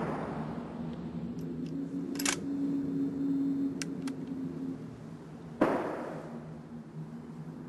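A rifle shot's echoing tail dies away, then a few sharp metallic clicks as the bolt of a scoped bolt-action hunting rifle is worked. About two thirds of the way through a second rifle shot cracks out, less loud than the first, with its own echoing tail.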